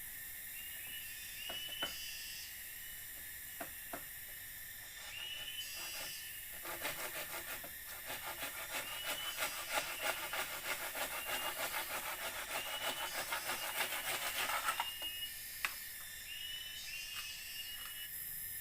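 Rapid, rhythmic scraping strokes on wood, like a hand saw or rasp at work, starting about five seconds in and stopping about ten seconds later. Under them is a steady high drone of forest insects with short repeated chirps, and a few sharp clicks come in the first seconds.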